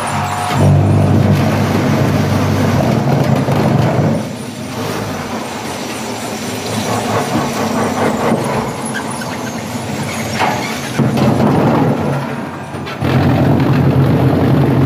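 Concrete block making machine running: a loud low mechanical hum that comes in heavy spells, from about half a second in to four seconds and again from about eleven seconds, with quieter machine noise between.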